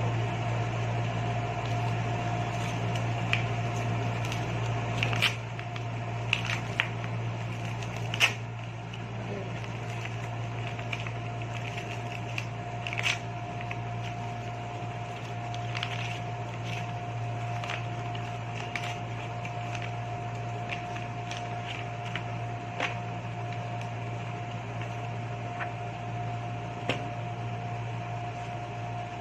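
Steady low mechanical hum with a thin constant whine above it, like a fan or appliance running in a small room, with scattered light clicks and rustles of a book and its packaging being handled, most of them in the first half.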